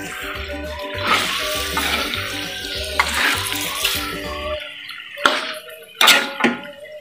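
Wet stirring noise of raw chicken pieces being turned through chili spice paste in a wok, with a few sharp spatula knocks on the pan in the second half. Background music with a steady bass beat plays over it and drops its bass partway through.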